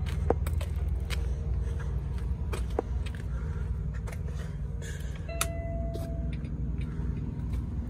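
Peterbilt semi-truck's diesel engine idling with a steady low rumble, under scattered clicks and knocks as someone climbs into the cab. Just past the middle a steady electronic beep sounds for about a second.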